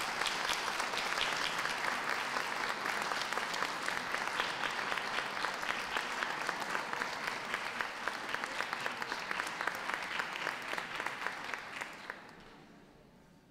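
Audience applauding, a dense patter of many hands clapping that fades away about a second before the end.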